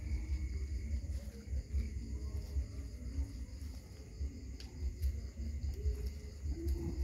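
Steady chorus of crickets chirring, over a low, uneven rumble.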